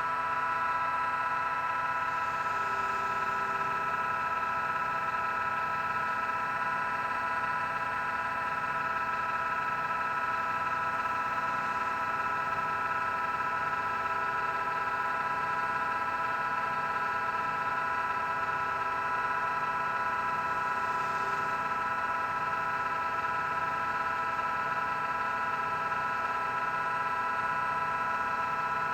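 Lathe motor running steadily, spinning a buffing wheel as a knife handle is buffed with micro-crystalline wax: a constant high whine with a faint low pulse about once a second.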